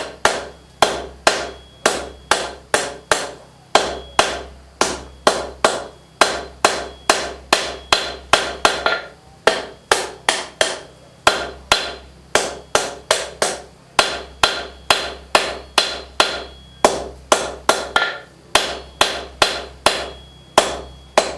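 Blacksmith's hammer striking a hot steel knife blank on an anvil, sharp ringing blows at about two a second with a few brief pauses, as the blade is forged to taper from thick to thin toward the point.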